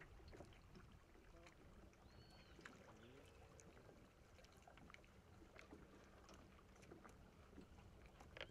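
Near silence: faint lapping of water against a small boat, with a few small clicks.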